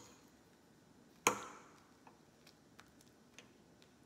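Metal fork clinking against a dinner plate while cutting food: a sharp clink at the start, a louder ringing clink just over a second in, then a few light ticks.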